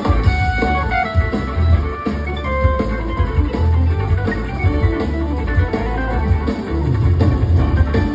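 Live band playing loud: an electric guitar solo with long, sustained notes over organ, bass and drums.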